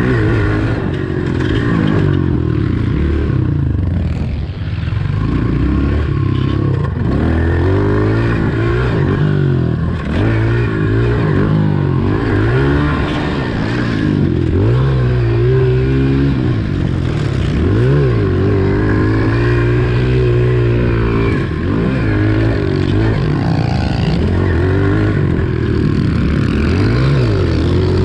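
Four-stroke pit bike engine being ridden hard, revving up and dropping back over and over as the rider works the throttle and gears.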